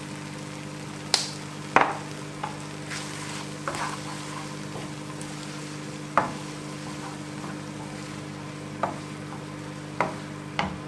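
Tomatoes, peas and beans sizzling in a frying pan while a wooden spatula stirs them, knocking against the pan every second or two. A steady low hum runs underneath.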